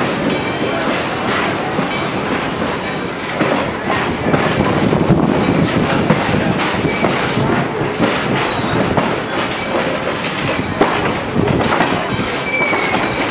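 Steel wheels of a slow-moving passenger coach clattering over the rail joints, with the car body rattling and knocking, heard close up from the coach window. A brief wheel squeal near the end.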